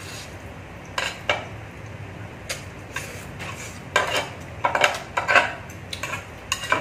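Metal spoon and chopsticks clinking and scraping against a noodle pot, in irregular clatters that come thicker and louder in the second half.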